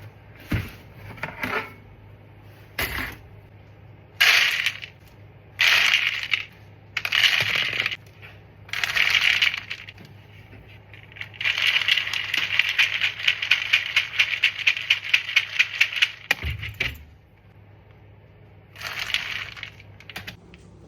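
Dry dog kibble being scooped and poured into a bowl, hard pieces clattering in a string of short pours and one longer pour of about five seconds, with a dull thump after it.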